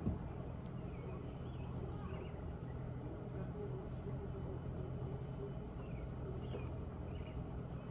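Quiet outdoor background: a steady low hum with a few faint, short chirps scattered throughout.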